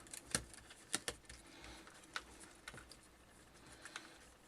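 A few faint, scattered clicks and light taps of small parts being handled, as the oscilloscope's display backlight and its ribbon cable are fitted into place.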